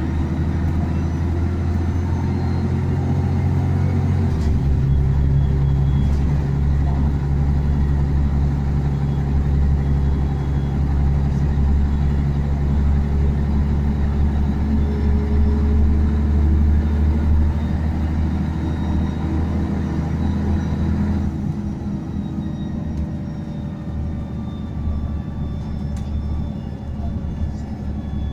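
Interior of a Scania N113DRB double-decker bus under way: its six-cylinder diesel drones with road rumble through the saloon. The engine note steps about four seconds in and climbs as the bus gathers speed, then eases off about three-quarters of the way through.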